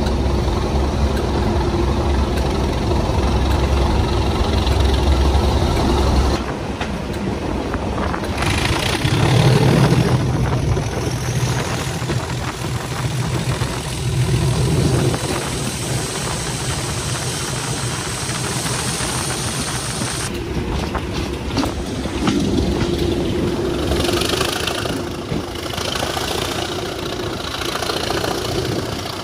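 Diesel train engines running and idling, the low engine sound changing abruptly several times as one recording cuts to the next.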